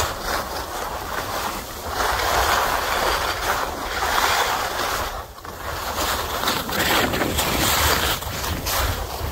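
Skis sliding and scraping on snow during a descent, with wind rushing over the microphone; the rushing noise swells and fades every second or two, with a brief lull about five seconds in.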